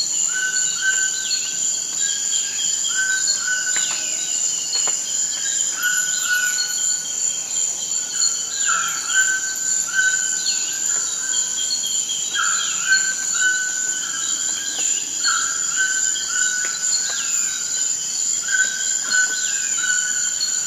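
Forest ambience: a steady, high insect drone, with bird calls repeating over it, short level whistled notes in runs and falling whistles, every second or two.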